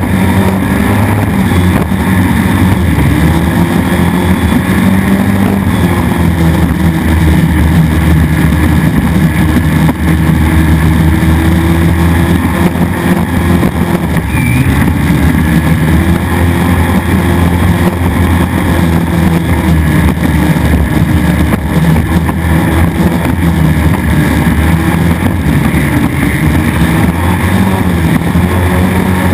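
Engine of a 4.2-litre displacement-class racing powerboat running hard at race speed, a loud steady drone whose pitch dips briefly and recovers a few times.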